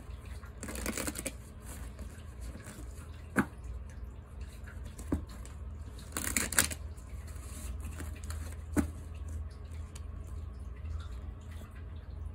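A deck of oracle cards being shuffled by hand in two short bursts, about a second in and again about six seconds in, with a few single light taps between them. A low steady hum sits underneath.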